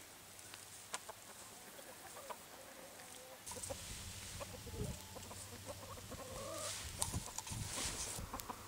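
Chickens clucking softly. From about halfway in there is rustling and a few knocks close by.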